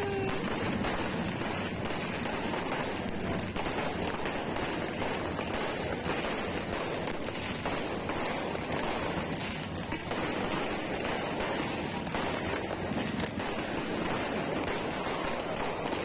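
Many fireworks going off at once, their pops and crackles blending into a steady, dense noise.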